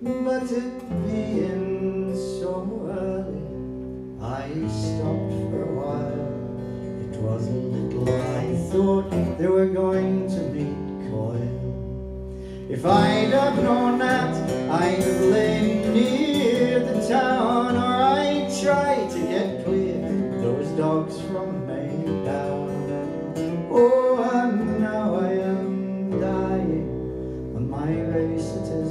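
Steel-string acoustic guitar played solo as an instrumental break between sung verses. It grows louder and busier about halfway through, with notes that slide and bend.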